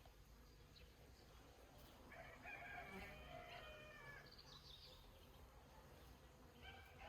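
A rooster crowing once, faintly, about two seconds in, the call lasting about two seconds; another call begins near the end, over a low steady rumble.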